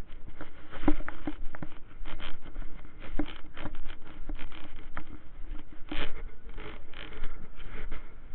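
Walking footsteps on a cobbled stone path, irregular scuffs and taps, with clothing rustling against a body-worn camera.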